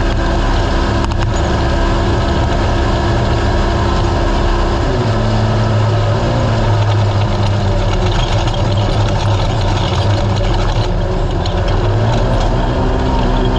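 Race UTV engine running hard over rough noise from the vehicle moving across the desert. Its pitch drops about five seconds in and climbs back up near the end.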